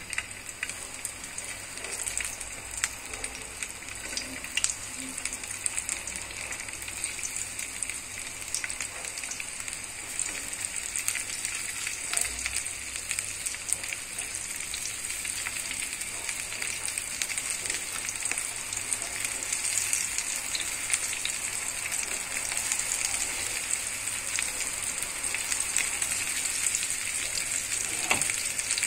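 Flour-coated small whole fish frying in hot olive oil in a pan: a steady sizzle with frequent small crackles, slowly growing louder as more fish go into the oil.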